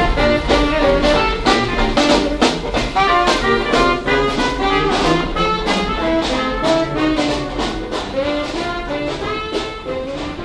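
Dixieland jazz band playing live, brass with a sousaphone over a steady beat, growing fainter toward the end.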